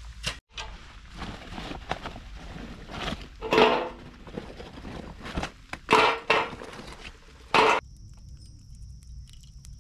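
Camping gear being handled and set out: a run of knocks, clinks and scrapes, with louder bangs about three and a half, six and seven and a half seconds in. The first of these rings briefly. Near the end the background drops away abruptly, leaving a steady high-pitched tone with faint ticks.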